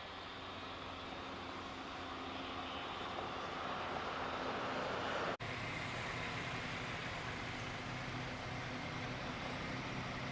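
Road vehicle noise: a vehicle running, growing gradually louder for about five seconds, then after an abrupt break a steady engine hum.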